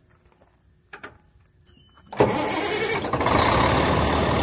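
1997 Kenworth T800 dump truck's Caterpillar C12 inline-six diesel starting about two seconds in. It catches at once with a sharp burst, with no long cranking, then runs loud and steady at idle.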